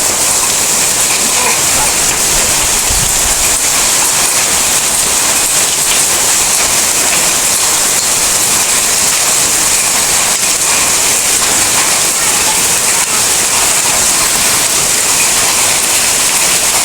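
Hail pelting down in a storm: a dense, steady hiss of falling stones and rain, with many small ticks of hailstones striking.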